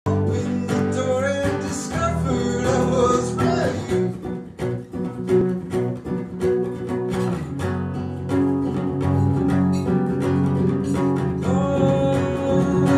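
Two acoustic guitars strummed together in a live duo performance. A man's voice sings a melody over them for a few seconds near the start and comes back in near the end.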